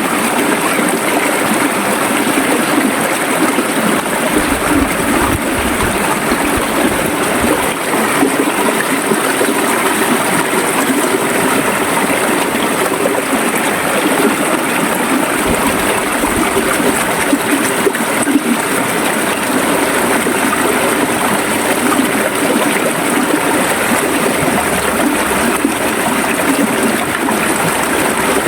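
River water flowing steadily, a continuous gurgling rush of running water.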